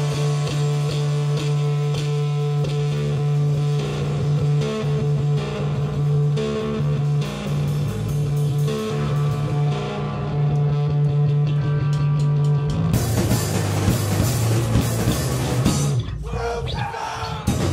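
Live rock band playing: a held low note rings under sparse guitar notes, then about thirteen seconds in the whole band comes in louder with drums and cymbals. It breaks off briefly shortly before the end, then resumes.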